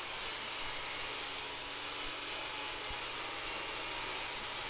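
Table saw cutting a hardwood block, a steady, faint sawing sound.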